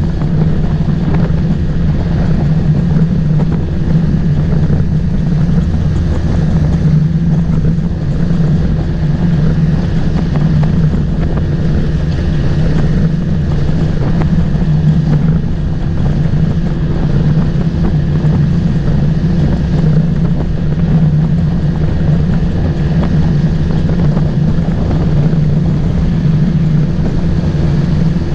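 Motorboat engine running steadily at an even speed, with a constant low hum.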